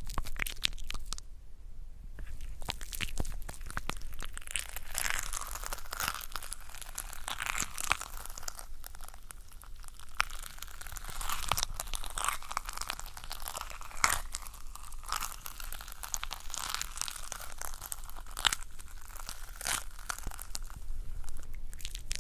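Clear shampoo gel being pumped into a small glass bowl and worked with a cotton swab, heard close up. It gives a dense, continuous stream of small sticky crackles and clicks.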